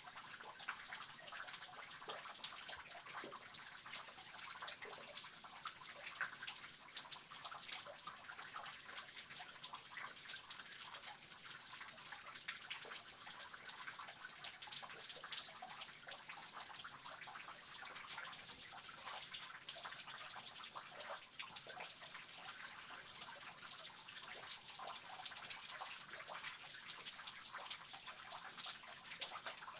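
Water dripping in a cave: many quick drops falling over a steady trickle of running water.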